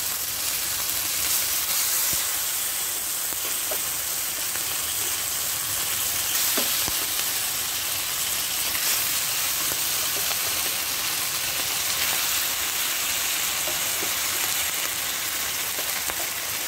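Simmered adobo chicken pieces frying in hot oil with browned garlic in a pan: a steady sizzle with a few small pops.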